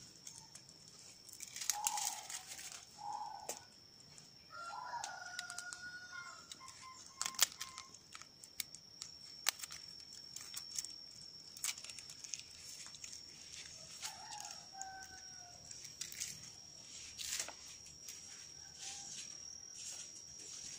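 Chickens clucking and a rooster crowing, with sharp snips and rustles of pruning shears cutting dragon fruit from the cactus stems, over a steady high-pitched tone.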